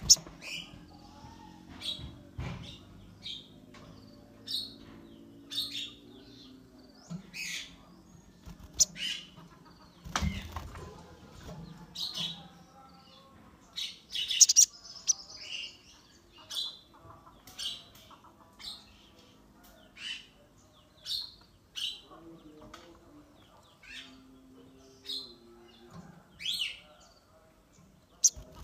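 Caged sogon bird calling with short, sharp chirps, roughly once a second, with a couple of thumps and wing flutters as it hops about the cage.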